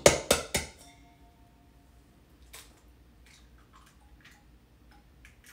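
An egg cracked by tapping it several times against the rim of a stainless-steel bowl: quick sharp knocks in the first half second, then a few faint scattered clicks.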